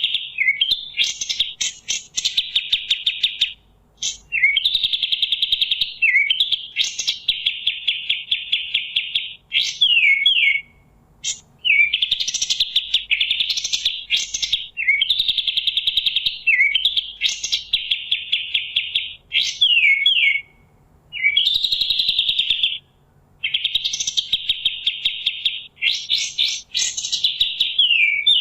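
Kapas tembak singing: fast rattling trill phrases of one to two seconds each, broken by quick falling notes and short pauses, over and over.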